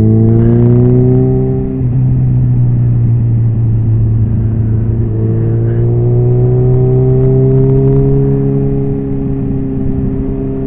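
Suzuki motorcycle engine under way. Its pitch rises for about two seconds, then drops away. About five seconds in it climbs again and settles into a steady drone.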